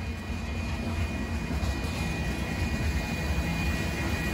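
Freight cars of a limestone train rolling past: a steady low rumble of steel wheels on rail, with a faint steady high ring above it.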